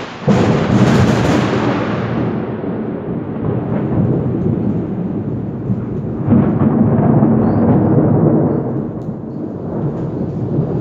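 Thunder: a sharp crack just after the start, then a long rolling rumble that swells again about six seconds in and fades toward the end.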